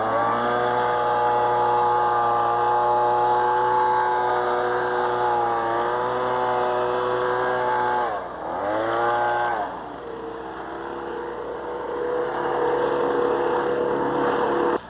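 Small engine running fast, its pitch dipping and revving back up twice, near the start and about eight seconds in, then settling to a lower steady speed for the last few seconds.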